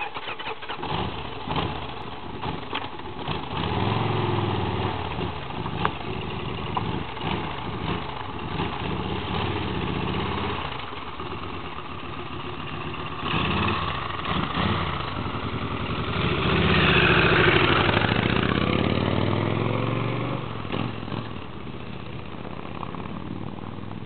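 Cruiser motorcycle engine starting, then running with blips of the throttle as it pulls away. It grows loudest about two-thirds of the way through, then fades as the bike rides off.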